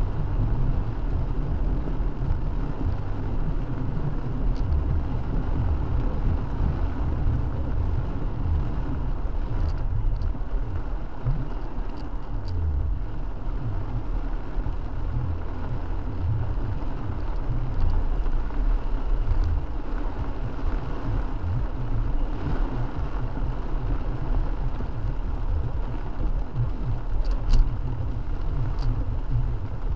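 A car driving in heavy rain on a wet road: a steady low rumble of engine and tyre noise under an even rain hiss, with a few faint clicks.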